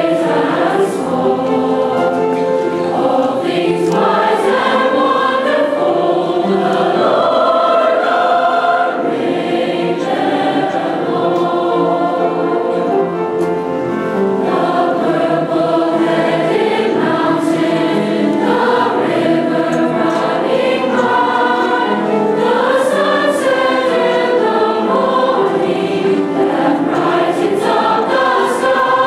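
Large youth choir of boys and girls singing together, many voices holding sustained notes.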